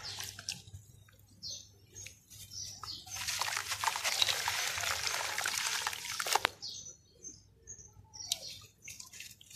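Handfuls of wet red dirt crumbling from hands into a basin of muddy water. A few soft sloshes, then about three seconds of splashing and trickling in the middle as the lumps fall in, ending in one sharp splash.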